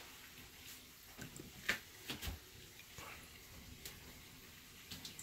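Kitchenware handled at a sink: a few faint, scattered clicks and light knocks, the sharpest one a little under two seconds in.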